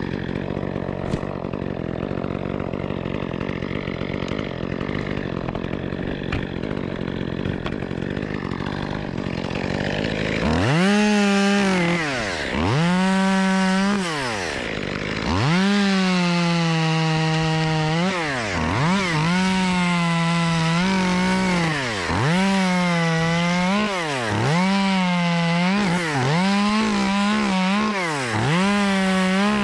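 Echo CS-2511TES top-handle two-stroke chainsaw idling for about the first ten seconds, then throttled up to full revs again and again as it cuts into pine wood. The pitch drops back toward idle between cuts, and the bursts come quicker near the end.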